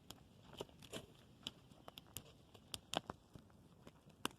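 Freshly lit wood campfire crackling, with irregular sharp pops and snaps as the kindling catches.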